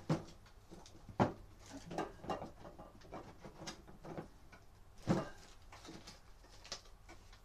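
A series of irregular knocks and clatters of hard objects being handled and set down, the loudest about a second in and about five seconds in, with lighter taps between.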